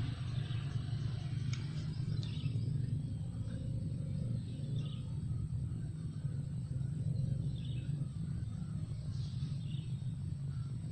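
Riverside outdoor ambience: a steady low rumble, with a bird chirping briefly about five times.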